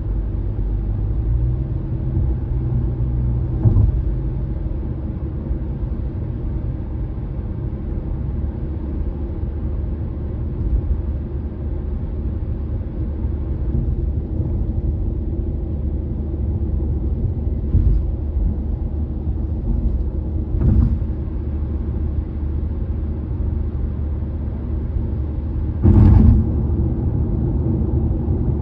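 Car cruising on an elevated expressway, heard from inside the cabin: a steady low rumble of tyre and road noise. Four short thumps come as the tyres cross bridge expansion joints, the loudest a double knock near the end.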